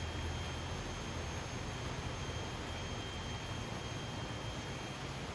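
Steady rain falling on garden plants and pool water, an even hiss with a low rumble under it. A thin, high steady tone runs above it.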